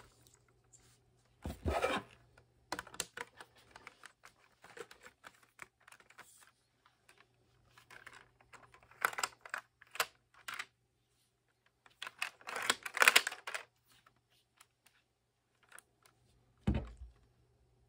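Plastic Lego bricks of a brick-built Lee-Enfield rifle model clicking and rattling as it is handled. There are louder clusters of clatter about two seconds in, around nine to ten seconds and around twelve to thirteen seconds, and a single dull thump near the end.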